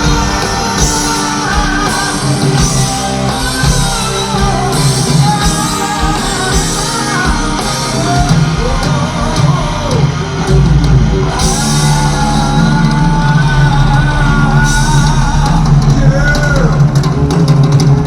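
Heavy metal band playing live: electric guitars and drums, with a melodic line bending up and down over them.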